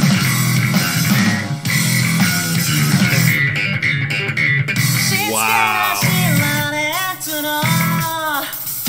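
Rock music driven by a prominent electric bass guitar, with a pitched line bending up and down over it from about five seconds in.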